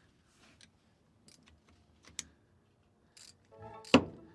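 Hand tools working a shifter bolt loose: scattered light metal clicks and taps, a sharper click about halfway, and a louder knock near the end. The bolt was not tight.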